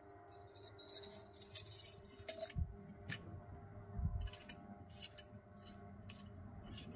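Scattered light metal clinks and a few dull knocks from a hand tool working a fitting on a stopped generator diesel engine. Short rising bird chirps come near the start and again near the end.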